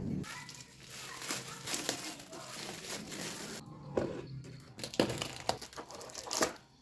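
Plastic packaging crinkling and rustling as a boxed dish rack is unwrapped, followed by a few sharp knocks in the second half.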